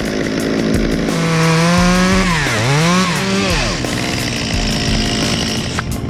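Stihl top-handle two-stroke chainsaw running at high revs, its pitch dipping sharply and climbing back about two and a half seconds in.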